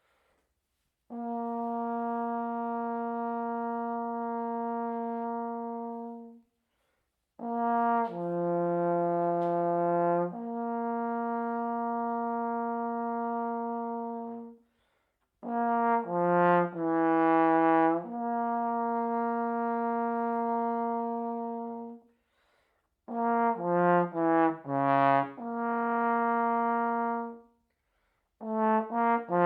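Solo trombone playing a slow melody in phrases, each closing on a long held note, with short silences between phrases. The later phrases move through quicker runs of short notes before settling on the held note.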